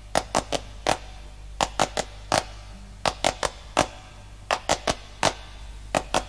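Vinyl LP's run-in groove playing before the song starts: sharp, irregular surface pops and clicks, about three a second, over a steady low hum.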